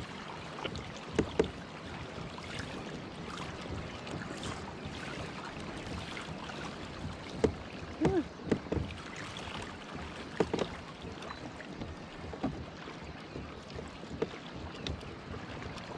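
Sea water washing and lapping against a plastic kayak hull under way, with a steady wash of water and wind noise. Irregular sharp slaps and gurgles are scattered through it, several coming together about seven to nine seconds in.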